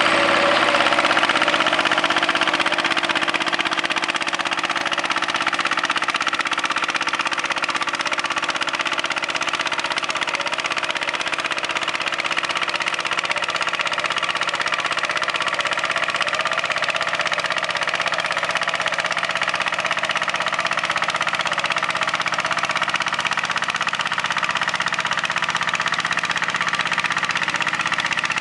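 Single-cylinder diesel engine of a 101B-3 walking tractor running steadily under load, driving a ditcher attachment that cuts a trench. It is a little louder in the first few seconds, then holds steady.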